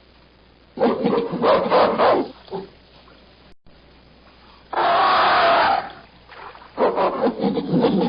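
Gorilla beating its chest: two bouts of rapid hollow slaps, each lasting about a second and a half, the first a second in and the second near the end. Between them, about five seconds in, comes a loud harsh sound lasting about a second.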